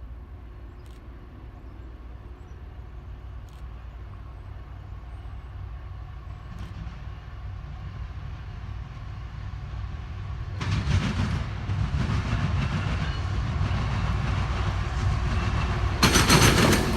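Approaching CSX freight train hauled by GE diesel locomotives: a low engine rumble grows steadily louder, steps up about ten seconds in, and gets much louder near the end as wheel and rail noise comes in.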